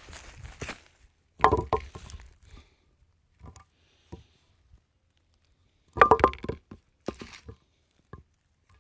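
AMF Amflite 2 bowling pin being struck twice, each knock ringing out with a short pitched tone that dies away within about a second, with a few lighter knocks between. For a nicked, worn pin it rings fairly well.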